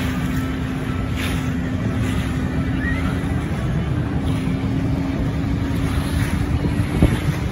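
Motorboat engine running steadily under way, a constant low hum, with wind rumbling on the microphone. A brief thump about seven seconds in.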